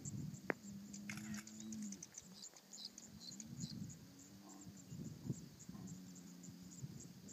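Low, drawn-out animal calls, some held and some rising and falling, over a steady run of faint high chirping from insects or birds.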